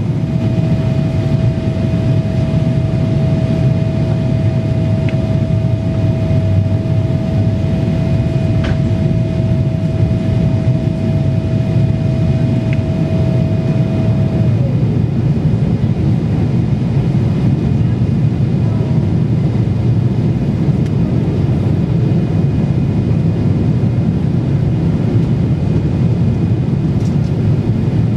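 Cabin noise inside a Boeing 777-300ER on approach: a steady low rumble of engines and rushing air. A thin, steady whine runs over it, then slides down in pitch and stops about halfway through.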